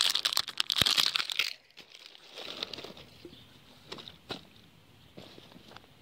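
Plastic wrapper crinkling and tearing as it is pulled off a plastic toy capsule ball, for about the first second and a half. After that, a few light taps from handling the hard plastic ball.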